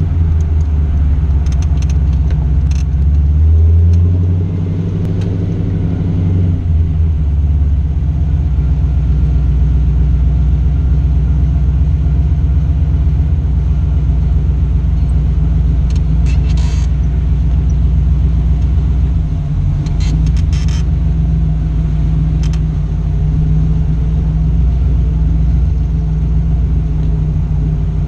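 Engine of a Factory Five '33 Ford hot rod roadster running as it drives, heard from its open cockpit. The note rises briefly about four seconds in, then settles into a steady low rumble.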